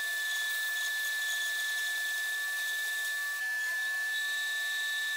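Bandsaw with an aggressively set half-inch blade cutting through thick black walnut: a steady high whine over the hiss of the cut, dipping briefly a little past halfway.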